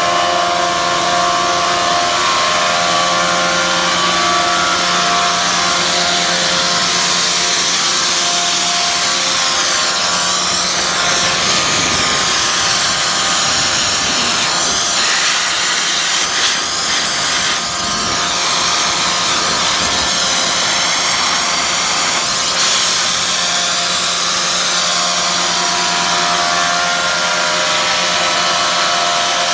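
Sullair 30 hp rotary screw air compressor, driven by a 460 V three-phase motor, running steadily: a loud hum with whining tones and a rush of air hiss. From about twelve to twenty-two seconds in the low hum drops away and the hiss takes over, then the hum comes back.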